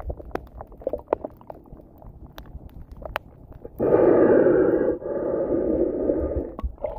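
A snorkeler breathing through a snorkel, heard through an underwater camera: two loud, rushing breaths starting about halfway through, the second ending shortly before the end. Before them come a few seconds of faint, scattered underwater clicks and crackles.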